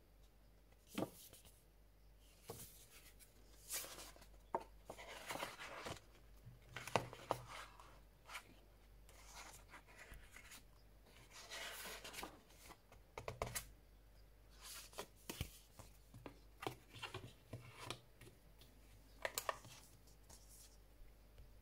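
Paper and cardboard being handled: album booklet pages turned and card pieces slid against a cardboard box, giving soft rustles, slides and light taps at irregular intervals.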